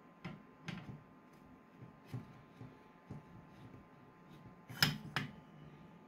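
Small metallic clicks and knocks of a quick-detach suppressor being worked onto a rifle's flash hider. Several soft clicks come in the first couple of seconds, then two sharp clicks close together near the end.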